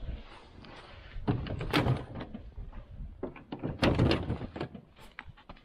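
Snow crunching and scuffing as someone moves around a snow-covered snowmobile in deep snow, with two louder spells of crunching, about a second in and again about four seconds in.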